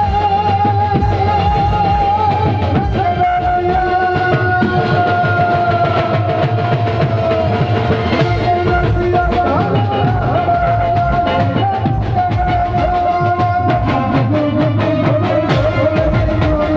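Live band music through a PA: drum kit and dhol keeping a steady beat under keyboard, with a melody held in long, slightly wavering notes.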